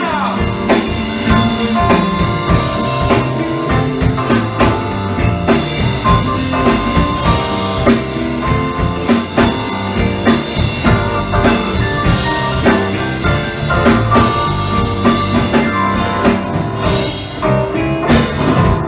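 Live rock band playing an instrumental passage: drum kit keeping a steady beat under electric guitar, bass guitar and electric keyboard. Near the end the cymbals drop out for about a second, then the band comes back in with a hit.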